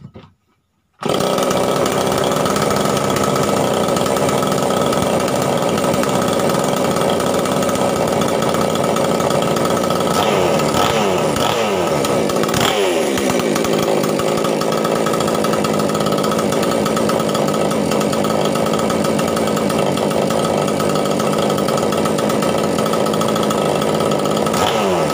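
A small 5800-class two-stroke chainsaw engine starts about a second in and runs steadily on its first test start after a new cylinder and piston have been fitted. Its revs sag and pick up again a couple of times.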